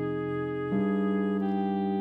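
Background instrumental music: held sustained notes that move to a new chord a little under a second in, and shift again shortly after.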